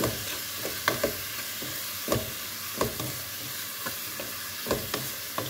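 Minced lamb and chopped onions sizzling in a pot as they are stirred and fried with spices, the stirring utensil knocking and scraping against the pot every second or so.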